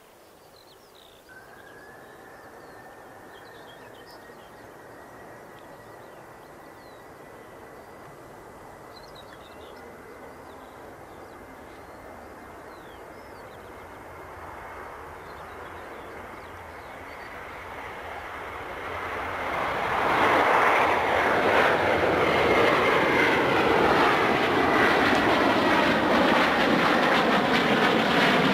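Jet airliner approaching and growing steadily louder, with a high engine whine, until it passes close and loud about twenty seconds in.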